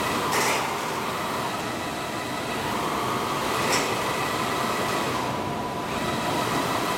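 HP Scitex XL1500 wide-format inkjet printer running, its printhead carriage shuttling across the media with a steady mechanical whir and a faint whine. A brief swish comes twice, near the start and about halfway, as the carriage sweeps past.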